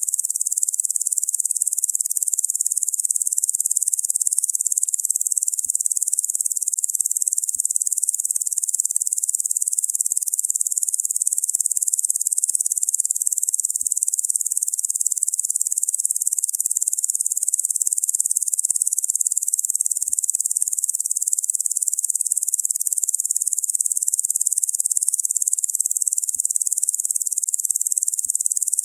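Insect chorus buzzing: an unbroken, high-pitched hiss that holds even throughout.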